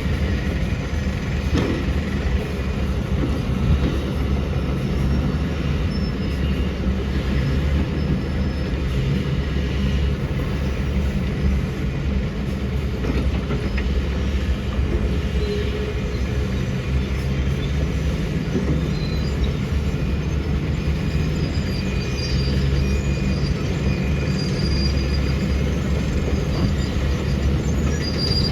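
Tata Hitachi 470H excavator's diesel engine running steadily, with faint high-pitched squeals now and then.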